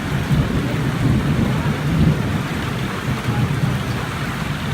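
Heavy rain falling steadily, with a long rolling rumble of thunder underneath that eases off near the end.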